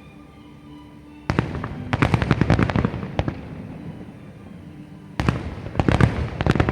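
Aerial fireworks going off in two volleys: a sudden bang about a second in, followed by a rapid string of crackling reports for about two seconds, then a second burst of bangs and cracks starting about five seconds in.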